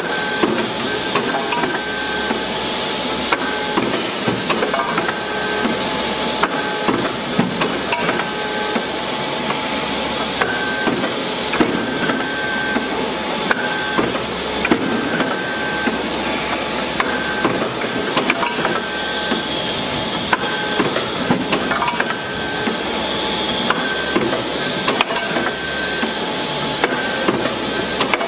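CNC hydraulic plate punching and marking machine working a 20 mm steel plate: steady machine noise with rapid, irregular tapping and clicks, and a high whine that comes and goes in short stretches.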